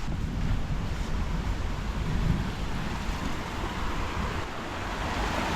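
Wind buffeting the microphone: a rough, uneven rumble.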